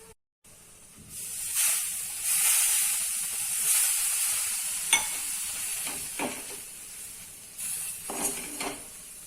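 Water sprinkled onto the hot gram-flour and fenugreek mixture in a kadhai sizzles loudly, the hiss slowly dying down, while a spatula scrapes and knocks against the pan a few times as it is stirred.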